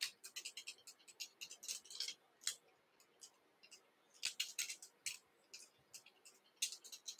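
Faint, irregular scratchy ticks of orange silk being wrapped by hand around a salmon-fly hook held in a vise, the thread rubbing against the fingers and the hook. The ticks come in clusters, thickest near the start, about four to five seconds in, and near the end.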